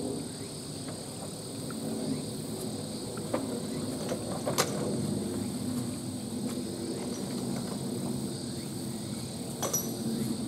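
A few sharp knocks and clinks from a log hung on a chain in an elephant enclosure as the elephant pushes and kicks it with a hind foot, the loudest about four and a half seconds in and another near the end. Under them runs a steady low background rumble with a thin steady high tone.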